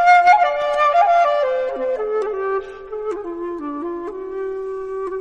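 Background music: a flute playing a slow melody that steps downward over the first few seconds, then holds on lower notes with small ornaments.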